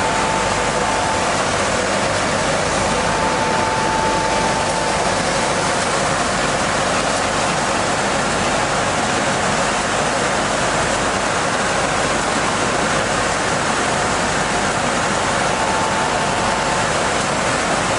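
Industrial wide-belt sanding machine and its dust extraction running steadily with no workpiece in it, a dense even rush of noise with a faint whine that comes and goes.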